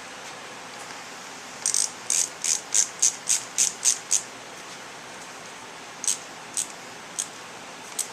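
A hand ratchet clicking as the fasteners of a small motorcycle engine cover are run down: a quick run of about ten clicks, then four slower single clicks.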